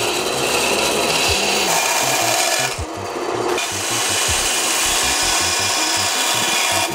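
Bench band saw cutting a small epoxy-resin-and-wood guitar-pick blank, a steady rasping hiss of the blade through the material. The cutting eases off for a moment about three seconds in, then carries on.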